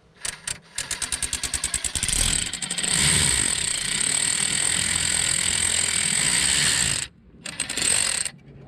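A power tool backing out a brake caliper slide pin bolt: a few clicks, a rapid run of clicks, then about five seconds of loud steady whirring that stops about seven seconds in, followed by one short final burst as the bolt comes free.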